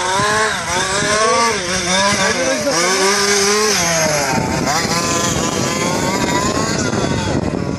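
Two-stroke gas engine of a 1/5-scale Losi 5ive RC car revving up and down repeatedly as it is driven round the track, the pitch rising and falling every second or so.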